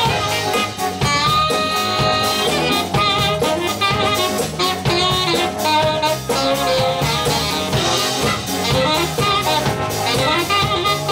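Live soul band playing an up-tempo number: a saxophone plays long held lead notes over electric guitars, keyboard, bass and drum kit keeping a steady beat.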